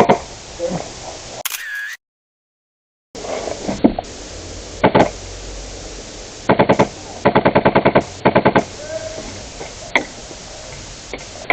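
HPA airsoft guns firing: a few single shots, then two quick full-auto bursts of about a dozen shots a second around the middle.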